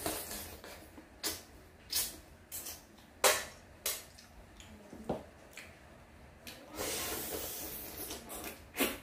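Mouth sounds of a person eating boiled suckermouth catfish by hand: a string of short smacks and sucks at the flesh, then about two seconds of hissing sucking near the end.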